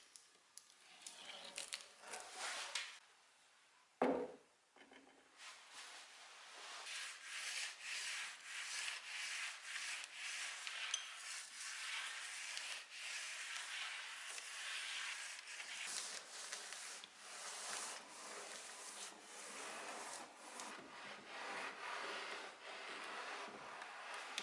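A single sharp knock about four seconds in, then repeated rubbing strokes of an abrasive on wood, as in sanding by hand.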